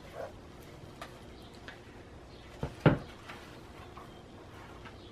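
Faint handling sounds of a journal being looked over: light scattered clicks and rustles, with two quick knocks close together just under three seconds in, the second the loudest.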